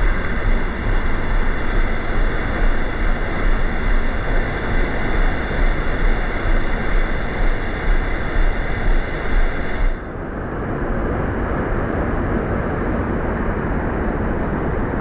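Steady rush of water from the creek's waterfalls and rapids in a jungle gorge, with a steady high-pitched drone on top that cuts off suddenly about ten seconds in.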